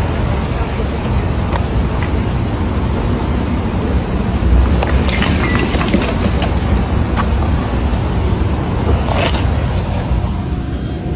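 Steady city street and traffic noise, with a few brief clicks and crackles scattered through it.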